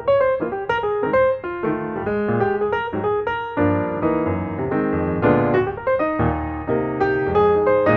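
Background piano music: a gentle melody of plucked-sounding piano notes over a steady accompaniment.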